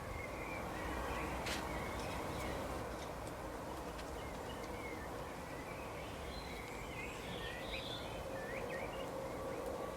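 Songbirds chirping in short, scattered calls over a steady background of outdoor noise. A single sharp click about one and a half seconds in.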